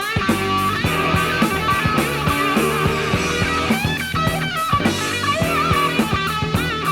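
Hard rock trio playing an instrumental passage: electric guitar lead with wavering, bent notes over bass guitar and a steady drum beat.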